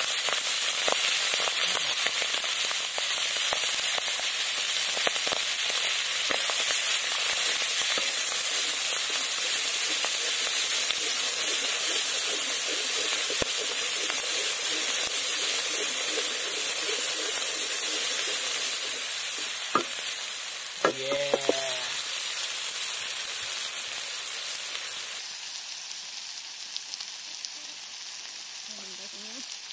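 Mussel meat sizzling as it fries in hot oil in a steel wok, stirred now and then with a utensil; the sizzle grows quieter over the last third.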